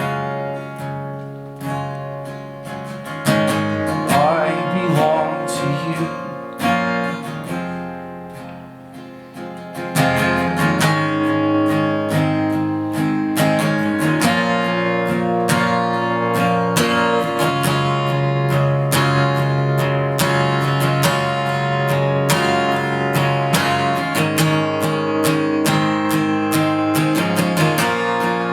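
Acoustic guitar music: a quieter, sparser passage, then fuller, louder strumming from about ten seconds in.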